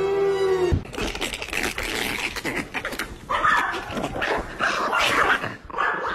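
A dog barking and yipping several times, from about a second in, after a held music note cuts off abruptly.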